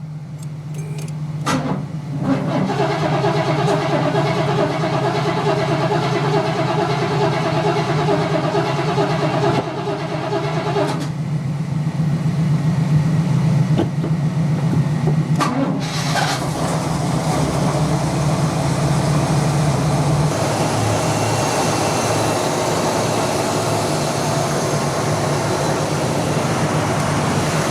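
1975 Cadillac Fleetwood's 500-cubic-inch V8 running steadily at idle, with a couple of short knocks about two seconds in and a change in the engine note about two-thirds of the way through.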